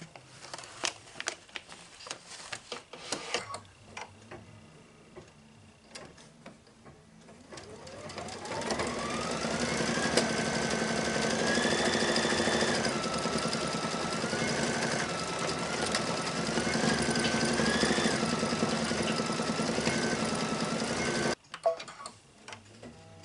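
A few scattered clicks and knocks, then about eight seconds in a Brother Luminaire embroidery machine speeds up with a rising whine and runs steadily, stitching down a fabric applique piece. Its pitch wavers up and down while it runs, and it stops abruptly near the end.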